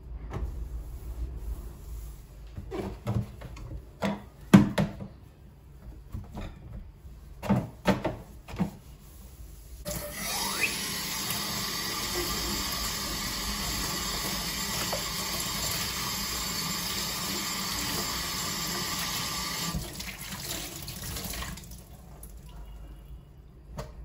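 Scattered knocks and clatters, then a kitchen sink tap runs steadily into the sink for about ten seconds and is turned off.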